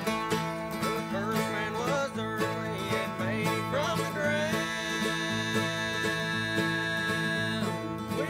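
Live acoustic bluegrass band playing: banjo, mandolin, acoustic guitars, resonator guitar and electric bass. Quick picked notes run throughout, with sliding notes a few seconds in and a long held high note from about halfway to near the end.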